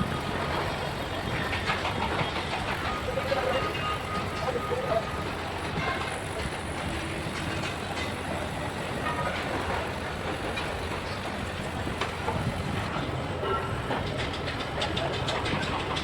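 Heavy machinery running steadily, with scattered metallic knocks and a rapid clatter near the end.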